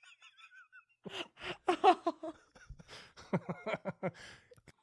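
People laughing in irregular bursts with breathy gasps, starting about a second in.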